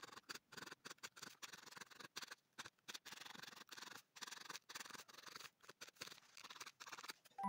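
Felting needle stabbing repeatedly into wool: faint, quick, scratchy pokes coming a few a second with short irregular gaps.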